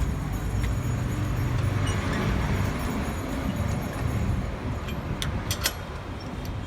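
Road traffic rumbling steadily past, with a few sharp metallic clicks about five seconds in.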